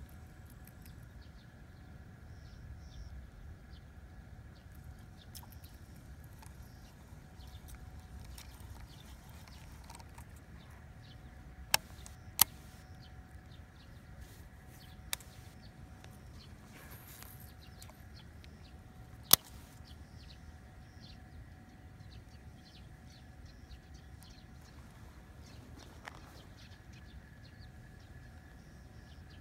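Outdoor ambience: a steady low rumble with faint high chirps, broken by four sharp clicks in the middle, the loudest two about seven seconds apart.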